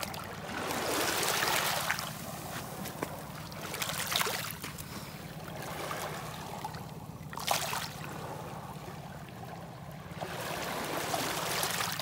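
Small waves lapping and washing over a pebble shore, swelling and fading every few seconds as water runs over and back through the stones, with one sharper splash past the middle.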